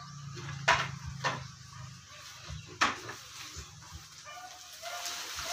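A few sharp knocks and thuds as a heavy woven sack is lifted and handled, with short animal calls in the background.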